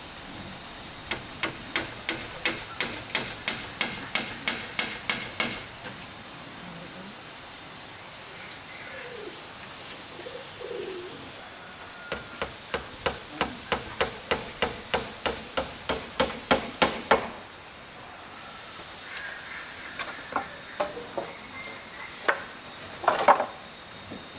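A hammer driving nails into wood, in two steady runs of quick blows about three a second, with a few single blows near the end.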